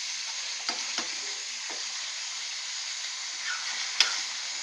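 Mutton chops and onions sizzling in oil in a pan as the liquid cooks down, with the stirring utensil knocking and scraping against the pan a few times, the sharpest knock near the end.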